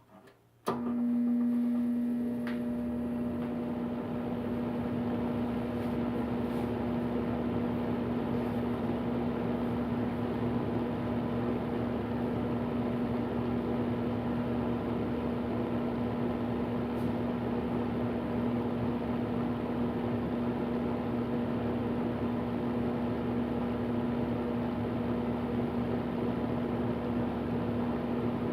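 Vornado VMH300 electric fan heater starting up with a click about a second in, then running steadily: air rushing from the fan with a steady motor hum.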